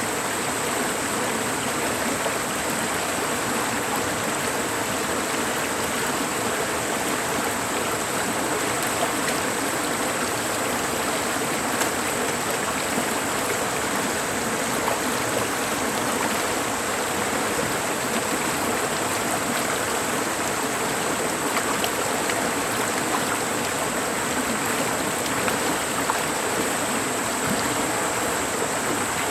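Mountain stream rushing steadily over rocks in the valley, an even, unbroken water noise.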